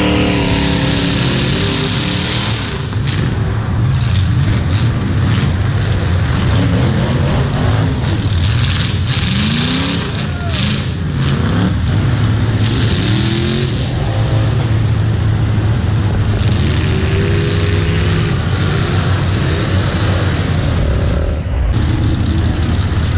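Motor vehicle engine revving over and over, its pitch rising and falling above a steady low rumble, with loud bursts of hiss in between.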